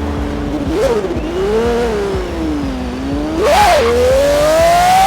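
Pagani V12 engine revving: two or three throttle blips whose pitch rises and falls, then a sharp rev about three and a half seconds in, after which the pitch climbs steadily as the car accelerates.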